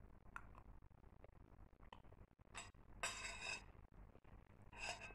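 Metal spoon clinking and scraping on a plate while eating: a few faint, separate clinks, and a louder scrape about three seconds in and another just before the end.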